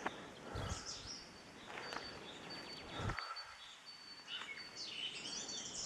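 Footsteps on a dirt track about once every second or so, over an outdoor noise bed, with small birds chirping high in the background.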